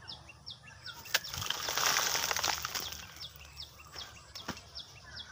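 Rustling in the crown of a coconut palm, strongest for a second and a half near the start, with a couple of sharp clicks. Short high chirps repeat about two to three times a second behind it.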